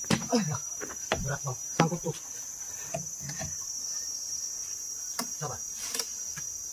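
Insects keep up a steady, high-pitched drone, with a few sharp knocks scattered through it.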